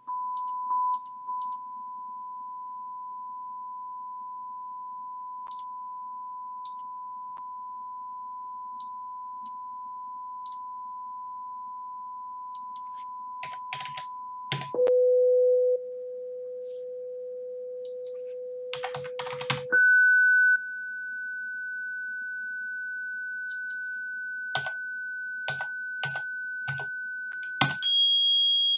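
Pure sine test tones from signal-generator software. A steady 1 kHz tone that gets louder right at the start switches to 500 Hz about 15 s in, to 1.5 kHz about 20 s in, and to about 3.3 kHz near the end. Bursts of computer keyboard typing come as each new frequency is entered.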